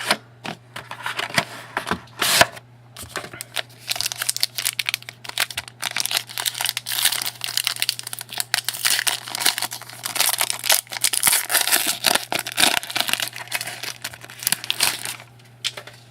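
Trading card packaging being torn open and crinkled by hand, with the cards and wrapping rustling: a long run of quick, irregular crackles and rustles.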